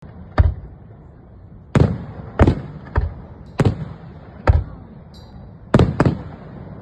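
Aerial fireworks shells bursting: about eight sharp booms at uneven intervals, each followed by a short rolling echo.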